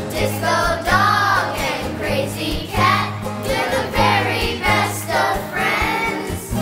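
Background song: singing voices over a steady bass line.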